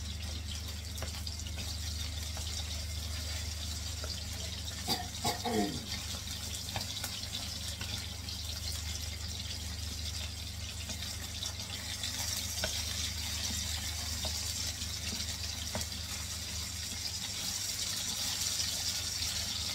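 Chicken strips sizzling in hot oil in a nonstick frying pan as they brown, stirred with wooden spatulas that give occasional light scrapes and taps. The sizzle grows a little louder about twelve seconds in, over a steady low hum.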